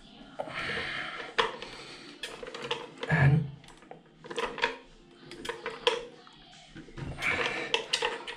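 Clicking, knocking and rattling of toilet cistern fill valve parts being handled while the float height is adjusted by hand, with a heavier knock about three seconds in.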